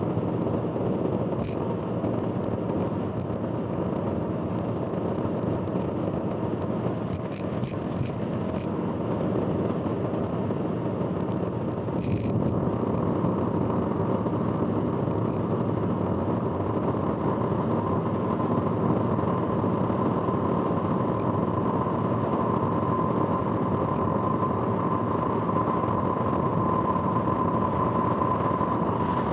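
Car driving on an expressway: steady road and engine noise heard inside the vehicle, with a thin steady whine that comes in about halfway and grows stronger toward the end. The loud noise is one the uploader calls abnormal.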